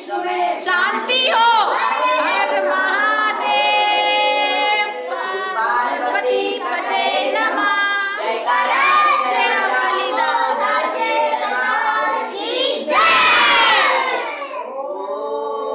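Several voices singing a Hindu devotional prayer together, with a brief loud shout about 13 seconds in.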